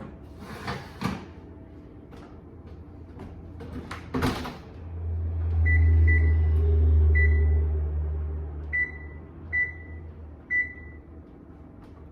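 A couple of clicks and a sharp bang like an appliance door shutting, then a kitchen appliance runs with a low hum for about five seconds while its keypad beeps six times at uneven intervals.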